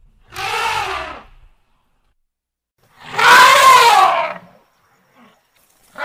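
Elephant trumpeting: two separate calls, the first short and the second louder and longer, each rising then falling in pitch.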